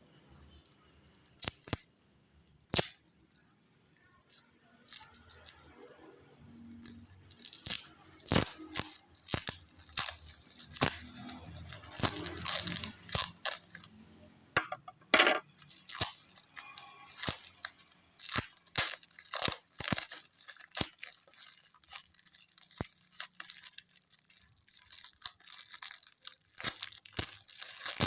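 Plastic packaging crinkling and tearing, with irregular sharp clicks and knocks as the broom set is unpacked and handled; sparse at first, busier from about a quarter of the way in.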